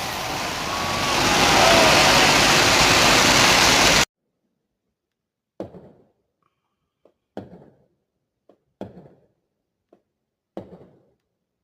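Firework spraying with a loud, steady hiss that stops abruptly about four seconds in. Then come a series of sharp knocks, one every second or two, each with a short ringing tail.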